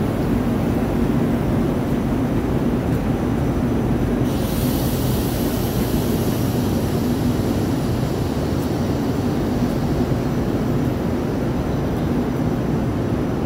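Siemens Desiro HC electric multiple unit (Rhein-Ruhr-Express) pulling out of a station, a steady low rumble with a hum; a higher hiss joins about four seconds in.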